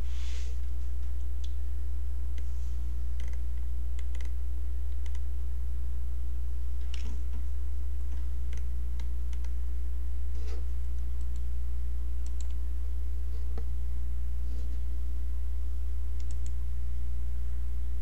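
Scattered sharp clicks of a computer mouse, over a steady low electrical hum.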